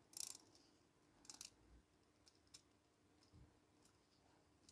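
Near silence, with a few faint clicks as the brass movement of an antique Ansonia striking clock is handled.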